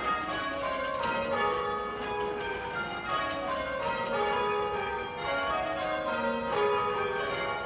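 Church tower bells rung full-circle by ropes, sounding rounds: the bells strike one after another in steady succession, each tone ringing on under the next.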